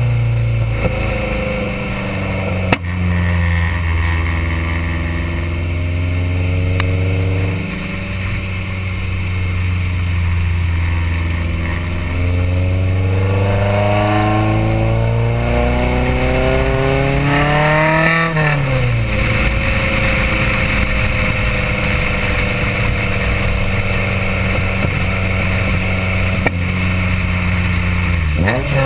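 Honda B16A four-cylinder VTEC engine heard right beside its side-exit custom exhaust (4-1 header, test pipe, resonator and SLP Loudmouth muffler) while the CRX drives. The note holds steady, then climbs in pitch as the car accelerates for about ten seconds before dropping sharply, holds steady again, and dips and rises once more near the end.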